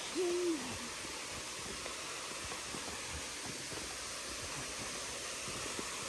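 Steady rushing hiss of a waterfall, with faint footsteps on steps and a brief high 'hoo' from a voice right at the start.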